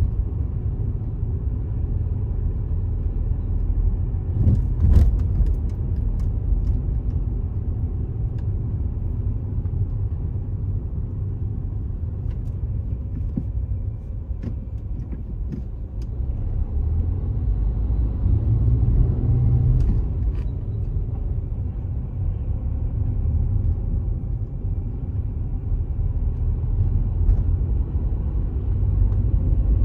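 Low, steady rumble of a car driving along a city street, engine and tyre noise, with a few short clicks, the loudest about five seconds in.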